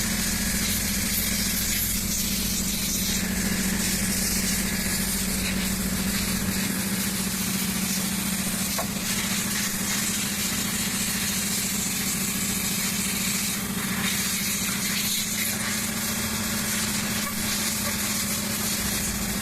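Water spray washing an excavator wiring harness: a continuous hiss over a steady machine hum.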